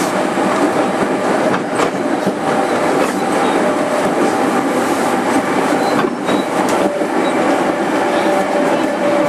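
A JR 205-5000 series electric train running at speed, heard from inside its motor car: a steady rumble of wheels on the rails with a steady running hum. A few sharp wheel clicks over rail joints come through along the way.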